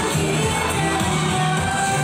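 Pop music with a singing voice over a steady, changing bass line.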